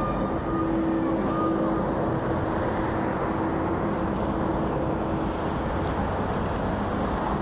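Airbus A380 jet airliner passing overhead, heard from the ground as a steady jet roar with a faint hum in it that fades out about six seconds in.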